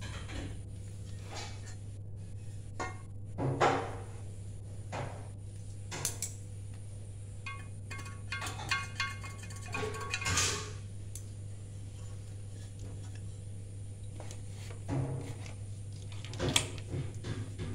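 Metal outboard gearbox housing and parts being handled on a tiled floor: scattered knocks and clinks a few seconds apart, the sharpest near the start and near the end, over a steady low hum.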